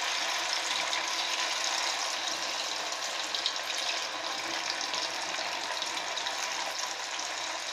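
Marinated chicken pieces deep-frying in hot oil: a steady sizzle dotted with fine crackles.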